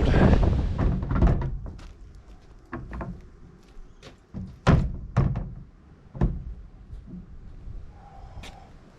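Wind buffeting the microphone, dying down after about a second, followed by a series of irregular knocks and thuds, the loudest about five seconds in.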